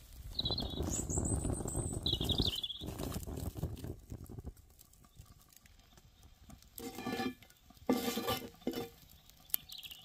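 Wood fire crackling under a cast iron pan, with small birds chirping over it. Near the end come three short low sounds whose source is unclear.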